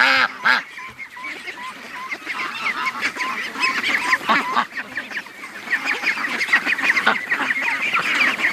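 A flock of domestic ducks and geese calling together, with many short overlapping honks and quacks. The loudest burst comes right at the start.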